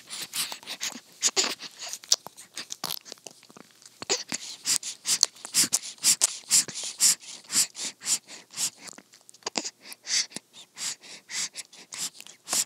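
A newborn baby sucking on a pacifier, close up: a steady run of quick sucking clicks, about two to three a second.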